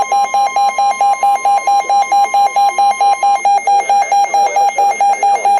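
Weather radio receiver's alert alarm beeping rapidly, about four to five beeps a second, signalling an incoming severe thunderstorm warning. The broadcast's steady NOAA warning alarm tone sounds faintly underneath and stops a little past halfway.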